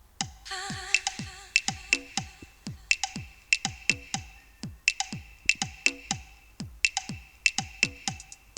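Electronic dance music played through Huawei Honor AM12 in-ear earphones and picked up by a microphone: a fast, steady synthesized kick-drum beat with ticking hi-hats and a synth line, starting just after the beginning.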